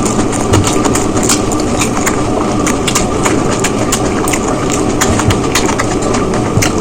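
Close-miked eating: chewing of biryani with many quick, irregular mouth clicks and smacks, over a steady background noise.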